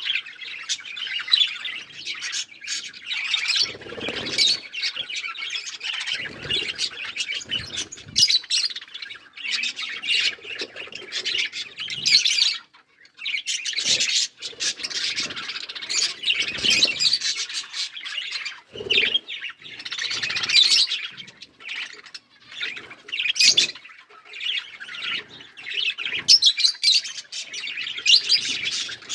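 A group of budgerigars chattering and chirping continuously in a dense, warbling stream, with occasional squawks. There are a few brief low rustles or thumps along the way.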